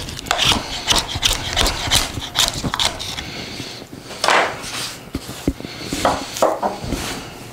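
Knife blade shaving thin curls down a wooden stick to make a feather stick: quick short scraping strokes, about three a second, for the first three seconds. Then a few scattered scrapes and knocks as the knife and shavings move on a wooden table.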